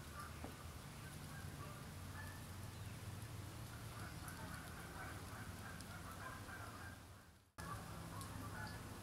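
Distant waterfowl calling, a faint steady chatter of honks over a low hum. The sound fades out and drops away for a moment about seven and a half seconds in, then comes back.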